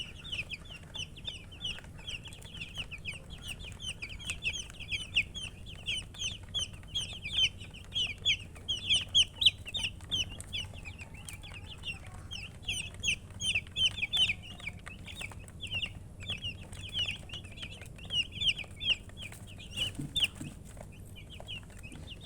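Baby chicks peeping: a continuous, overlapping stream of short, high, downward-sliding chirps, several a second.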